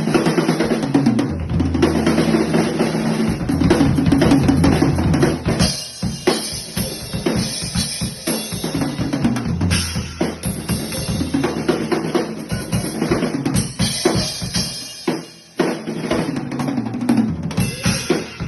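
Drum kit being played: bass drum and snare beating steadily, with cymbals getting brighter about five seconds in and a short break near the end.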